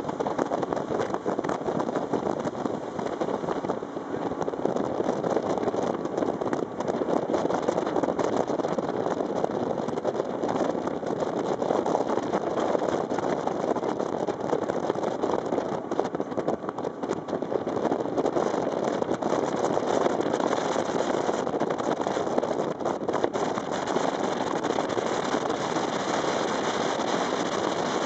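Steady rush of wind over the microphone mixed with the engine of a rigid inflatable boat running at speed over open water, with a few brief knocks.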